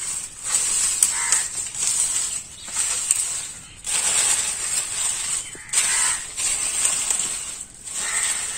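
Crows cawing repeatedly, harsh calls every second or two, over a steady high-pitched buzz.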